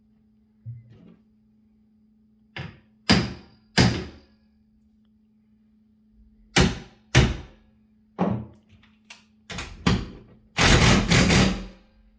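A series of sharp knocks and thuds from work on a TV wall bracket while its lag screws are tightened: about eight separate hits with uneven gaps, some in close pairs, then a denser rattling burst of about a second near the end.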